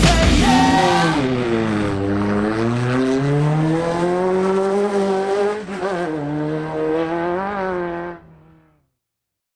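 Off-road race vehicle's engine running under changing throttle: its pitch drops, then climbs slowly, dips briefly about five and a half seconds in and holds, before fading out near the end.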